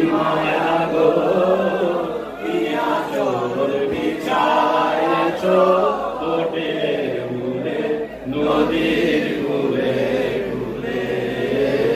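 A group of men chanting an Islamic devotional song about the Prophet together, in long drawn-out melodic lines.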